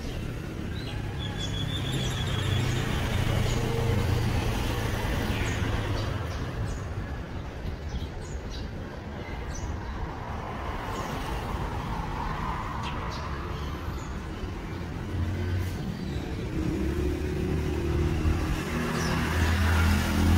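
Road traffic: vehicles passing with a continuous low engine hum that swells and fades, louder near the end. A short run of bird chirps about a second in.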